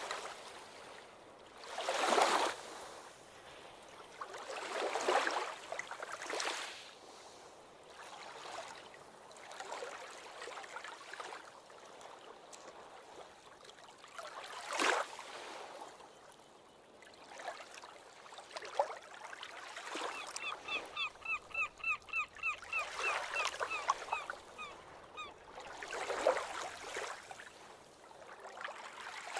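Ocean waves breaking and washing up a beach, each surge swelling and fading every few seconds. About two-thirds of the way through, a bird gives a rapid series of short calls, about four a second, for some five seconds.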